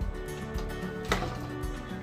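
Background music with steady held notes, and a single light knock about a second in.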